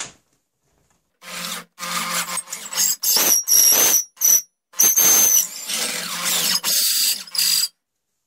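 Electric drill turning a long, shop-made drill bit that bores the ramrod hole lengthwise into a wooden flintlock long rifle stock. It runs in a string of bursts with short pauses, starting about a second in, and the bit gives a high squeal at times as it cuts the wood.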